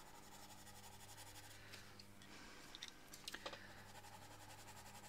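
Near silence over a low steady hum, with a few faint clicks and taps between about two and three and a half seconds in, as wooden coloured pencils are swapped and knocked together.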